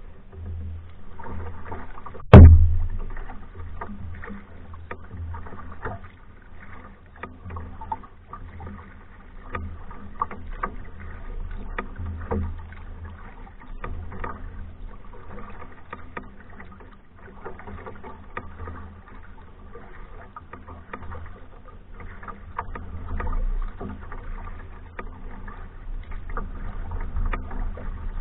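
Hornbeck New Trick solo canoe being paddled: small splashes and clicks of the paddle in the water over a steady low rumble. One loud sharp knock about two seconds in.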